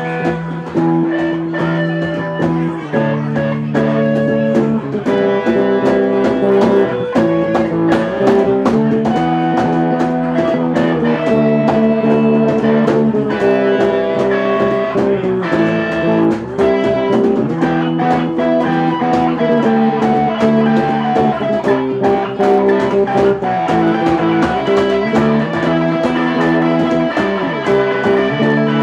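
Live band playing: electric guitars ringing out held notes and chord changes over hand-played congas keeping a steady beat.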